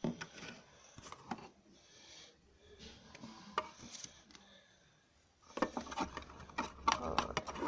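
A utensil stirring and scraping a homemade slime mixture in a container, clicking against its sides; the stirring turns fast and steady about five and a half seconds in.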